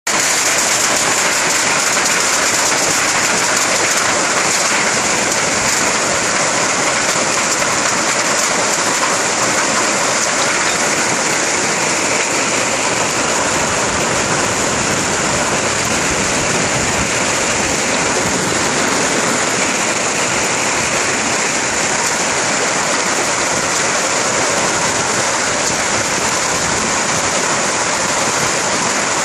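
Hailstorm: hailstones and heavy rain pelting the street and pavement, a loud, steady, dense hiss with no letup.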